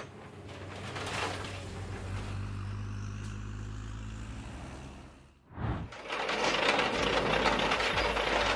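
A heavy machine's engine running with a steady low hum. About five seconds in the sound cuts off abruptly, then louder, dense clattering machinery noise takes over.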